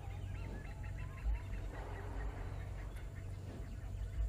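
A chorus of forest birds calling, with many short chirping and whistled notes overlapping, over a low steady hum.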